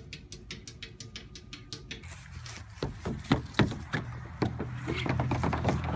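Quick, even tapping, about six taps a second, then a run of irregular knocks and thumps as young goats bump against a hollow plastic playground slide.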